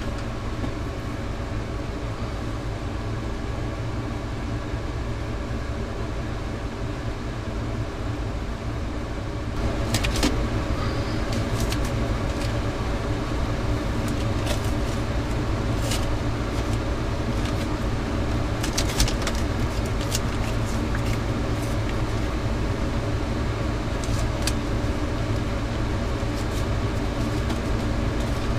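A steady low machine hum throughout, a little louder about a third of the way through, with scattered clicks and crackles of masking tape being pulled off the roll and pressed around a plastic oil bottle.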